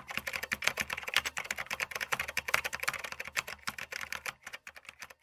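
Computer keyboard typing sound effect: a fast, uneven run of key clicks that thins out in the last second or so.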